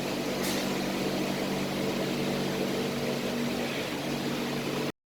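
Steady whirring drone of cooling fans on running crypto-mining rigs, with several steady hum tones beneath the rush of air. It cuts off abruptly near the end.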